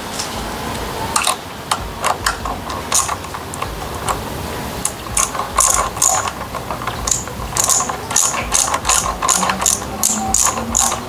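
Ratcheting clicks of a hand screwdriver tightening the bolt of a phone-holder bracket on a motorcycle mirror mount. The clicks come sparsely at first, then in quick runs, closer together, from about halfway through.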